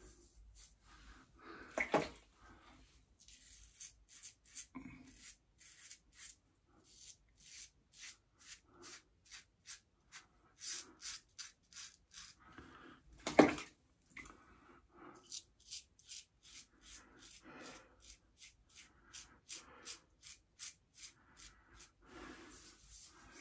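Safety razor scraping through lathered stubble in a run of short, quick strokes, shaving against the grain. Two louder bumps come about 2 seconds and 13 seconds in.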